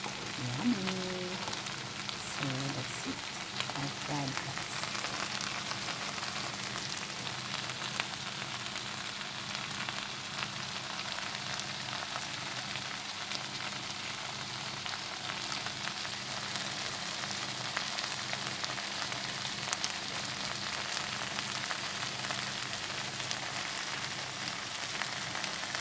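Fried rice with crab stick and shrimp frying in a hot pan, a steady sizzle.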